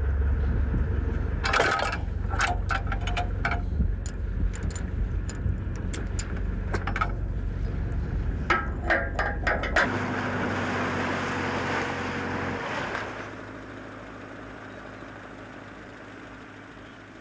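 A fishing boat's engine running with a deep rumble under clusters of sharp knocks and clanks. About ten seconds in the rumble gives way to a rushing hiss, then the sound fades to a fainter, steady hum.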